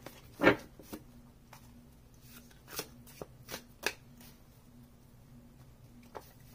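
A deck of tarot cards being handled and shuffled by hand, with a few short, sharp card snaps, the loudest about half a second in.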